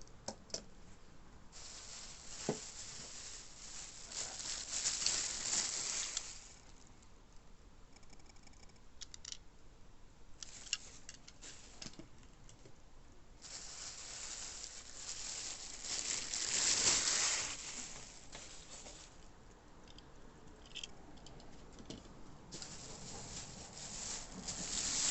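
Packaging being unwrapped by hand: rustling and tearing in three stretches of a few seconds each, with small clicks and taps between them.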